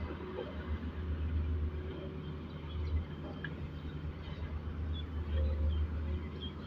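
Diesel engine of a Daewoo Solar 130W wheeled excavator running steadily, a low rumble that swells and eases a little.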